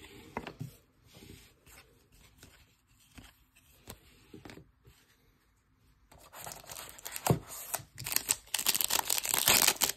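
Baseball cards handled quietly in the hand, with faint clicks, then from about six seconds in a Panini Diamond Kings card pack's wrapper being torn open, crinkling and tearing loudly.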